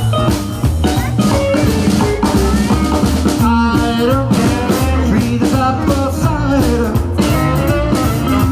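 Live rock and roll band playing, with a saxophone carrying the lead line over electric guitar, double bass, piano and drum kit.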